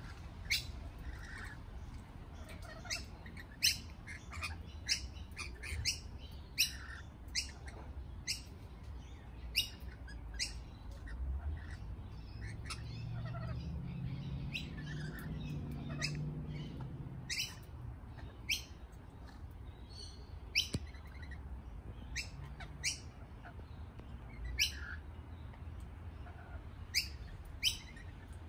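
Lorikeets giving short, sharp, high chirps and screeches, scattered irregularly at about one or two a second.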